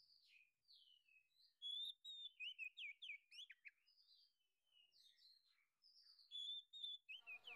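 Small songbird, a prenjak (prinia), calling in a rapid run of sharp chirps and quick down-slurred whistles. The calls pause briefly in the middle, then resume.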